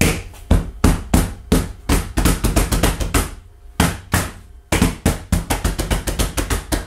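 A quarter-inch wooden board being pounded and slapped by hand onto double-stick tape on a CNC router bed, to seat it firmly. It makes a rapid, irregular run of sharp knocks, several a second, with a short pause a little past the middle.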